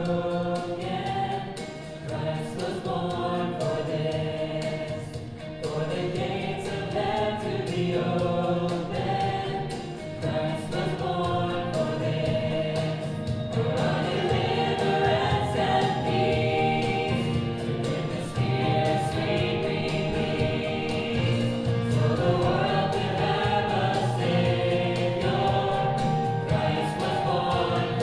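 Church choir singing a Christmas hymn with accompaniment, in sustained phrases.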